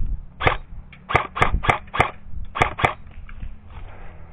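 Airsoft rifle firing single shots: seven sharp cracks in about two and a half seconds, in uneven pairs and runs, then it stops.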